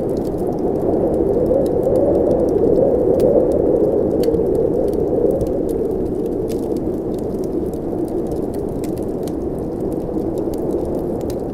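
Blizzard wind blowing as a steady low rush that swells for a few seconds near the start, with small crackles and pops from a wood fire scattered throughout.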